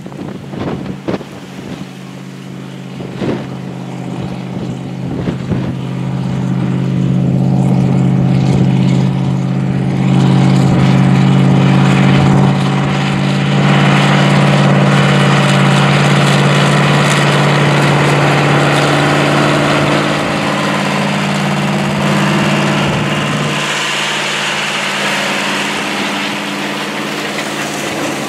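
Versatile 700 Series II four-wheel-drive tractor's 210 hp V8 diesel running under load while pulling a chisel plow. It grows louder as the tractor approaches, then holds a steady drone. Near the end the low note thins and a rushing hiss comes in.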